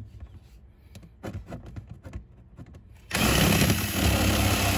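Small 12-volt air compressor of a valvetronic exhaust valve controller switching on about three seconds in and running steadily, powered from the cigarette lighter for a test. Light handling clicks come before it.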